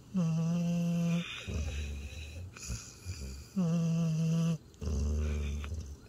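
Border collie–Australian shepherd mix snoring in deep sleep. There are two pitched, about one-second snores, one near the start and one about halfway through, and each is followed by a lower, softer breath.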